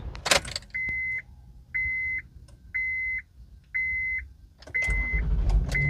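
A car's dashboard warning chime beeping with the ignition on: six even beeps at one pitch, about one a second. A thump comes just before the first beep, and about a second before the end a low rumble rises under the chime.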